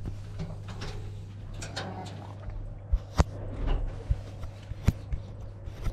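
A steady low hum with a few sharp knocks and clicks, the loudest about three seconds in and again near five seconds, with light handling noises in between.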